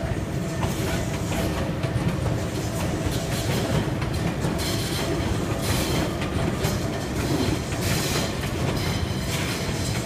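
Tobu Skytree Line red-and-white limited express train running past on the ground-level tracks: a steady rumble of wheels on rail, with a run of repeated clacks from about halfway through.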